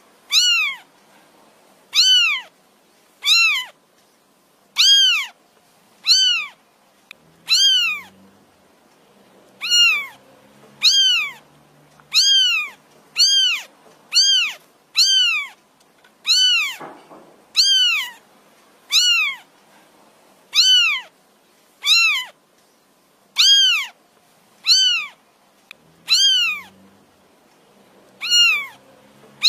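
Orange tabby kitten meowing over and over, high-pitched calls that rise and fall, about one a second. The kitten is calling for its mother.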